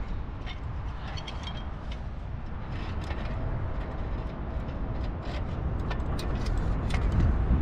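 Wind rumbling on a helmet camera's microphone high on a church spire, with scattered light clicks and clinks of metal climbing gear (karabiners, pulleys and ladder fittings) as a steeplejack climbs. The wind grows stronger toward the end.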